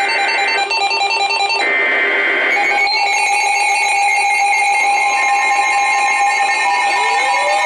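Emergency alert attention tones, loud and pulsing, several layered together, with the pattern shifting a couple of times; a rising tone joins near the end. They signal a new weather warning for the area.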